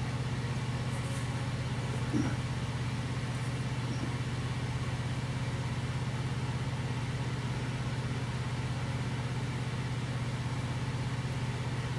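A steady low hum, even and unchanging, with one soft thump about two seconds in.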